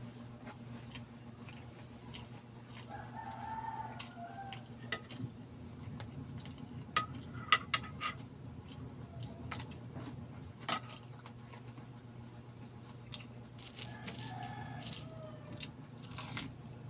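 Close-up mouth sounds of chewing and biting balut (boiled fertilised duck egg). A spoon clinks sharply against a glass dish a few times midway. A rooster crows twice in the background, once early and once near the end, over a low steady hum.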